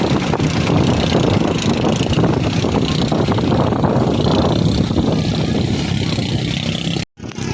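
A fishing boat's engine runs steadily, with wind and water noise over it. The sound drops out abruptly for a split second near the end.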